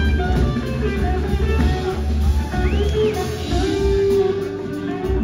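Live blues-rock band playing, heard from the audience: an electric guitar lead with sliding notes over drums, bass and keyboards. The guitar bends up and back down about halfway through, then holds a long note near the end.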